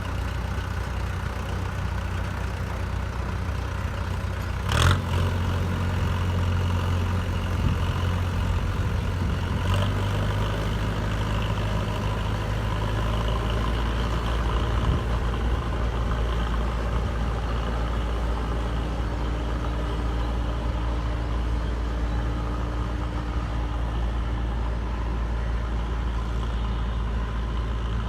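Diesel engine of a JCB backhoe loader running steadily as the machine works, its low note shifting with the load. A sharp knock comes about five seconds in, and a lighter one about ten seconds in.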